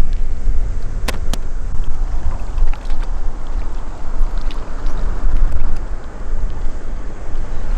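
Strong wind buffeting the microphone in a steady low rumble, over water moving in a shallow rock pool. Two sharp clicks come about a second in.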